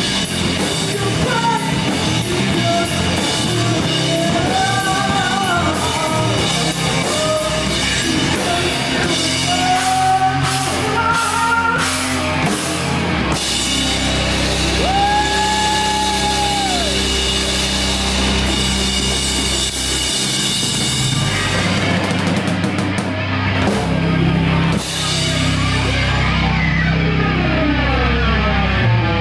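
Live rock band playing loud: distorted electric guitars, bass and a drum kit under a singer's voice, with one long held note about halfway through. About 25 seconds in the cymbals drop away, leaving the guitars ringing on.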